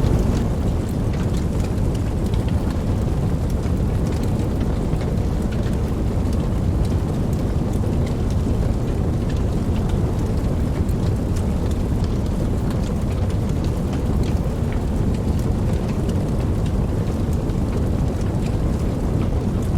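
Steady rain, a dense low rush with many small drop ticks on top.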